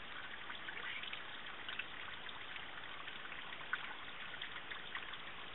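Water trickling and dripping off a rock ledge onto the wet rock below, a faint steady patter of small drops.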